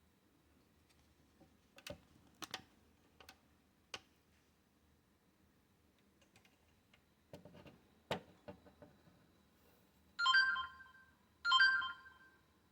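Scattered light clicks and taps, then two identical short electronic chime tones about a second and a half apart.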